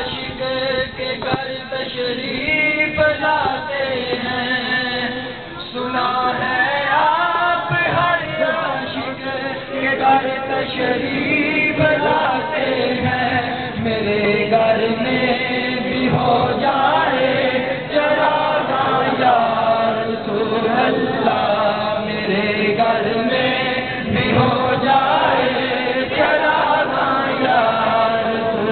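A crowd of men chanting together, many voices overlapping in a continuous group recitation.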